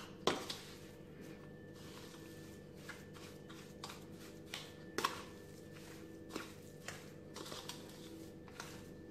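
A steel spoon scraping through a crumbly mix of roasted wheat flour, ghee and ground gond in a stainless-steel bowl, with a few light clicks of the spoon against the metal and soft rustling as the mixture is worked by hand. Quiet overall.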